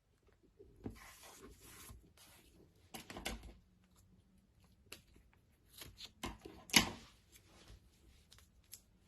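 Paper masking tape being pulled from the roll, cut and pressed onto paper: rustling and tearing with scattered short clicks, and one sharp snap about two-thirds of the way in as the loudest sound.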